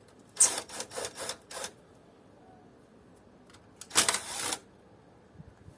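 Sharp metallic clicks and clinks from tools and metal parts being handled while an air conditioning unit is taken apart: a quick run of about five clicks in the first two seconds, then another short clatter about four seconds in.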